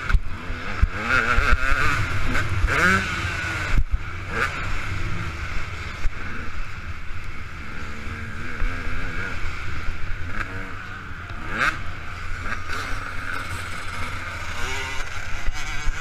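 KTM 200 EXC two-stroke single-cylinder dirt bike engine revving up and falling off repeatedly as it is ridden around a motocross track, heard from a helmet-mounted camera.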